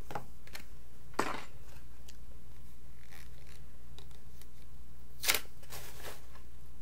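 Scattered clicks, taps and short rustles of small items being handled and set down, the loudest a quick double click about five seconds in, over a steady low hum.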